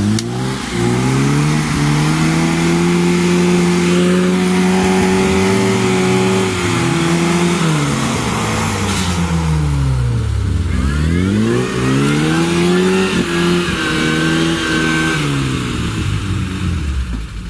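Off-road vehicle's engine revved hard while pushing through deep mud: the revs hold high for several seconds, then fall and climb again a few times, and drop away at the end.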